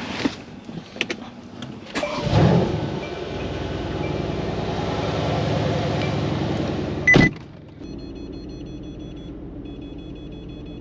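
A few clicks and rattles, then a motor-driven mechanism starts with a clunk, runs steadily for about five seconds and stops abruptly with another clunk. A quieter steady hum with a faint repeating high tone follows.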